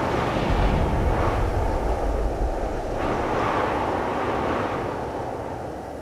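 Deep, steady rumble of a tram running past, fading near the end.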